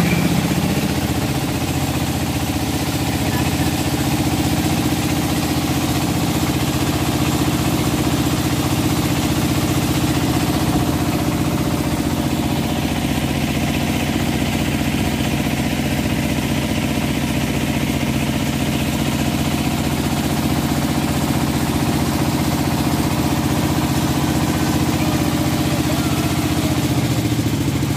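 Engine of a wooden river passenger boat running steadily under way, a low even drone that does not change.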